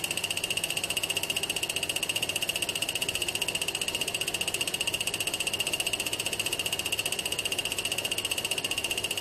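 Thermoacoustic Stirling free-piston engine with its linear generator running steadily, pulsing evenly about sixteen times a second under a steady high-pitched whine.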